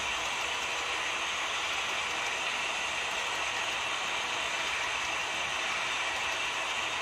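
Model train of empty coal hopper cars rolling past on layout track: a steady, unbroken mechanical clatter of the small cars running along the rails.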